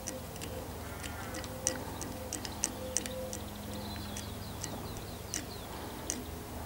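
Bowstring serving jig being wound around the string, the thread pulling off its tensioned spool with irregular light ticks, about two a second.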